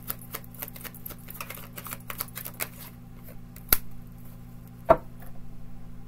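Tarot cards being shuffled by hand: a quick run of light clicking for about three seconds, then two sharper card snaps about a second apart, over a steady low hum.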